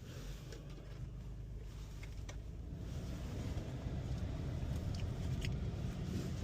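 A car running, a steady low engine and road rumble that grows louder over the first few seconds, with a few faint clicks.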